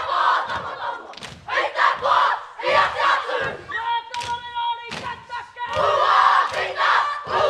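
Kapa haka group shouting a haka in unison, phrase after phrase, with sharp stamps and body slaps between the calls. About four seconds in, a single high held note sounds for about a second before the shouting resumes.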